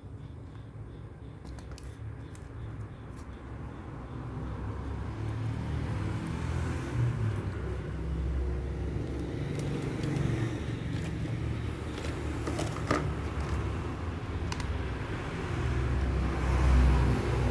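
A low rumble that grows louder from about four seconds in and swells again near the end, with a few sharp clicks in the second half.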